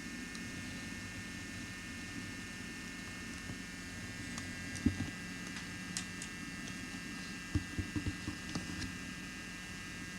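Steady electrical hum with a thin high whine over it, and a few soft knocks and taps, one about five seconds in and several around eight seconds.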